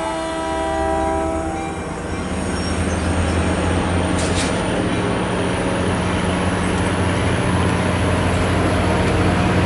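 Caltrain bilevel commuter train rolling through the station. Its horn dies away about a second and a half in, followed by a steady rumble of the cars passing over the rails with a low diesel drone underneath.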